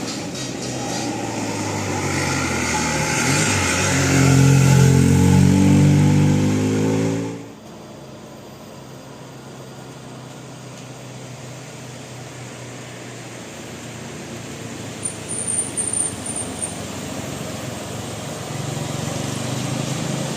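Bus engine accelerating, its pitch climbing steadily, then cutting off suddenly about seven seconds in. A quieter steady engine hum follows, and another vehicle comes in louder near the end.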